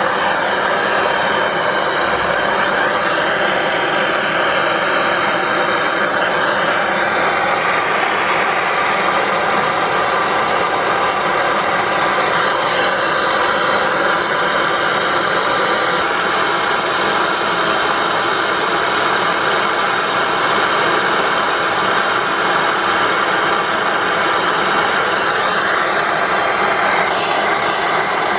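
Canister-mounted gas blowtorch burning with a steady, loud hiss.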